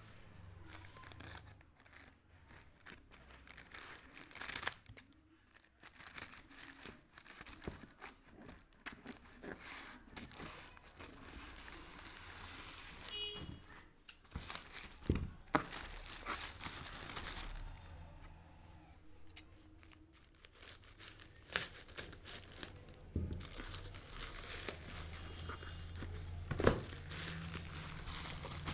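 Plastic courier mailer bag crinkling, rustling and tearing as it is cut open with scissors and handled, in irregular crackles.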